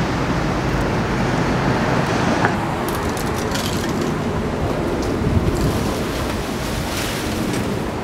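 Steady outdoor street noise: a low hum of traffic with wind buffeting the microphone, and a few faint clicks.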